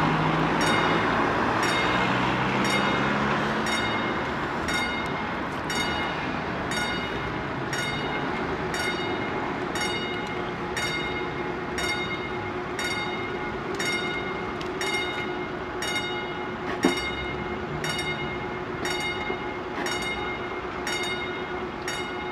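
Railway level-crossing warning bell striking about once a second while the barriers come down, over passing road traffic. A steady low hum joins about eight seconds in, and there is a single sharp knock near the end.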